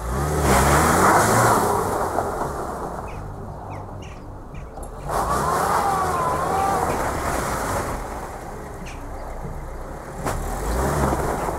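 Lada 4x4 Urban (Niva 2131) engine revving hard as the car pulls away on ice, its wheels spinning and throwing snow. The revs rise and fall three times.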